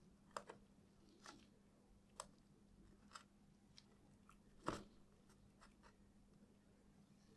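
Faint small clicks and taps of tools and wires being handled while soldering wires to a circuit board, with one louder knock about two-thirds of the way through, over a faint steady hum.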